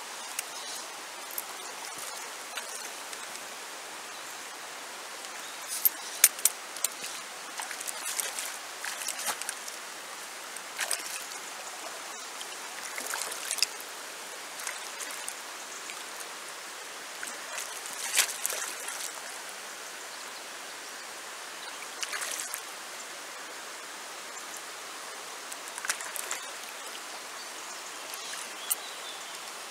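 Shallow river running over a stony bed: a steady rush of flowing water, broken now and then by short sharp crackles and splashes, the loudest about six seconds in.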